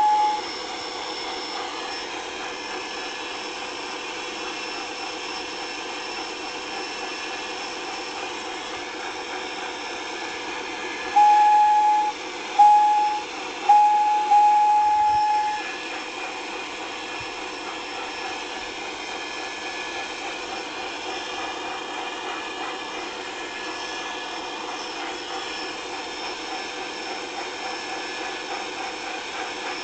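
Locomotive whistle sounding four blasts in quick succession about eleven seconds in, the first and last longer than the two between, over a steady mechanical hiss and hum.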